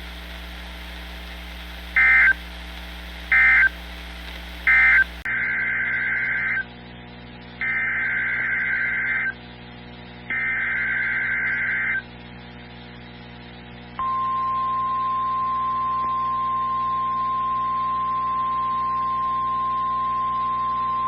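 Emergency Alert System data tones over NOAA Weather Radio: three short buzzy bursts of the end-of-message code, then three longer bursts of the SAME header for the next alert. About two-thirds of the way in, the steady single-pitch 1050 Hz weather radio alert tone starts and holds.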